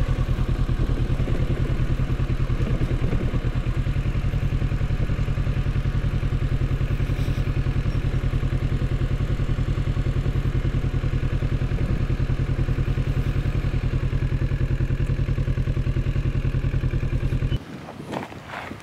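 Kawasaki Z650 motorcycle engine running steadily at low revs while the bike rolls along a gravel dirt track. It cuts off abruptly about a second before the end, leaving quieter wind noise.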